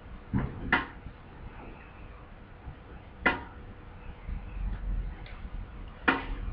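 Metal swing frame and its hangers clinking and knocking with the motion of the swing, a sharp metallic clink about every three seconds, three times, over a faint low rumble.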